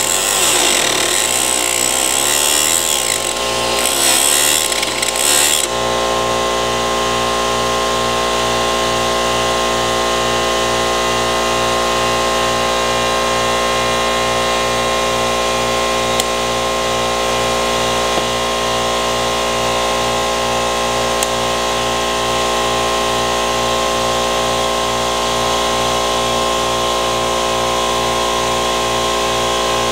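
A power tool running. For the first several seconds its pitch wavers and the sound is rougher, as if working against something. From about six seconds in it runs at a steady, even pitch with a fast low pulsing.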